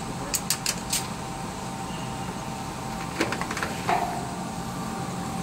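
Steady hum of a vertical CNC hardening machine tool, broken by four quick sharp clicks just after the start and another run of clicks and knocks about three seconds in that ends in a short squeak.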